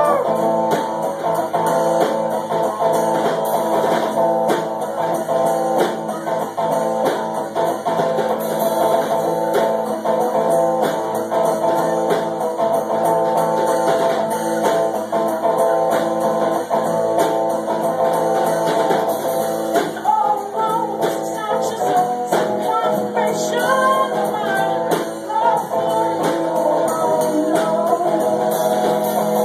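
Live rock band playing: electric guitar and drum kit, with a singing voice coming in about two-thirds of the way through.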